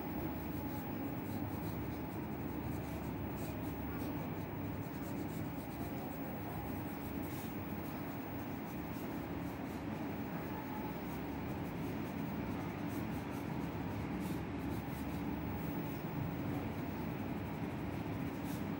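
Pencil scratching on drawing paper in fine strokes, over a steady background hiss.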